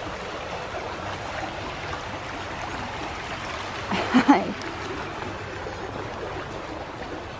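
Shallow creek running over rocks, a steady rush of water. About four seconds in, a brief voice-like sound cuts in over it.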